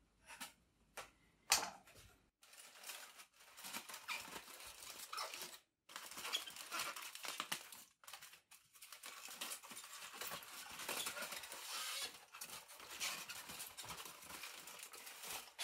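Aluminium foil crinkling and rustling as a wrapped, rested smoked chuck roll is unwrapped, after a few light clicks about a second in.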